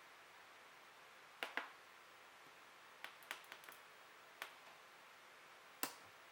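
Drill bits clicking against a magnetic bit holder: about eight short, sharp clicks, a pair about a second and a half in, a quick cluster around three seconds in, then two single clicks, with near silence between them.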